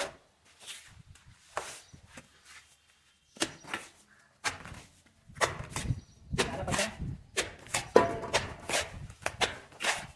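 Steel trowel scraping and scooping wet cement mortar in a metal pan, mixed with lumps of mortar slapped and pressed onto a brick wall. Irregular scrapes and slaps, with a quiet gap of about two seconds before they pick up and come thick and fast.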